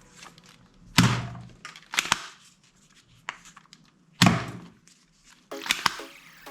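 Two loud thunks from a toy gun firing, about three seconds apart, with a few lighter clicks between them. Near the end a quick run of short pitched notes starts.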